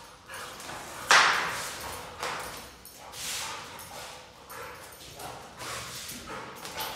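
Pit bull chasing and lunging at a flirt pole lure on a concrete floor: a run of short scuffs and thumps about once a second, with one sharp, loud thud about a second in.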